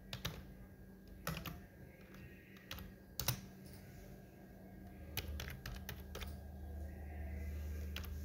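Computer keyboard being typed on slowly: a dozen or so separate keystroke clicks with uneven pauses between them. A low steady hum joins about halfway through.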